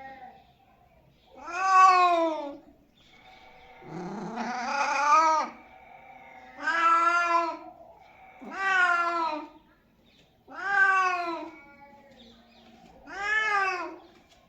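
Domestic cat meowing about six times, roughly two seconds apart. Each meow rises and then falls in pitch, and the second one is longer.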